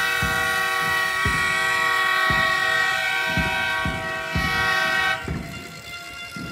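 A loud horn held as one steady chord of several tones, cutting off suddenly about five seconds in, with irregular dull thumps underneath.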